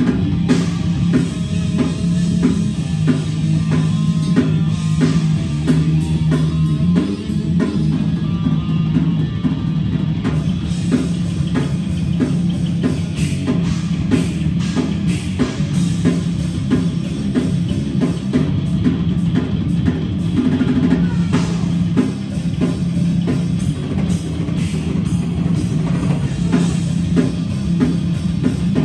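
Heavy metal band playing live: electric guitar and bass guitar holding a low riff over a drum kit with a dense run of bass drum and cymbal hits.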